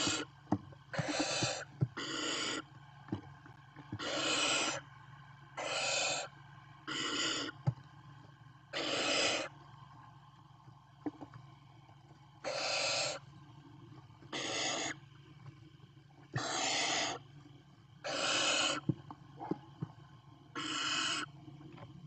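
Barn owl nestlings giving hissing 'snore' calls, the begging call of young barn owls. There are about a dozen harsh hisses, each around a second long, coming one every one to two seconds, with faint clicks between them.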